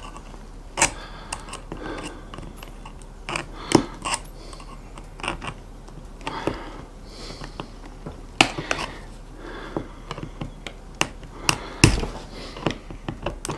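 Irregular small clicks and taps of plastic Flow Hive frame parts being pushed and levered together with a thin metal rod, metal knocking on plastic. The sharpest click comes near the end.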